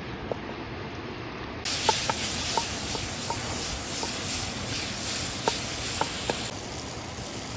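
Sizzling in a hot pan over an open wood fire. The sizzle starts abruptly about a second and a half in and cuts off about a second before the end, with scattered sharp pops and crackles throughout.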